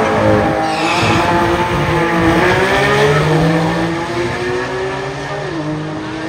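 Two drag-racing cars, a red Porsche 911 and a silver BMW coupe, accelerating hard off the start line at full throttle. The engine notes climb and drop back at upshifts, and grow gradually quieter as the cars pull away down the strip.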